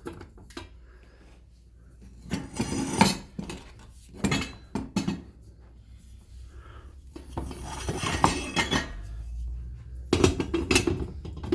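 Metal sections and spacers of a tall pipe stand being handled and set down, knocking and clattering against each other in several short bouts.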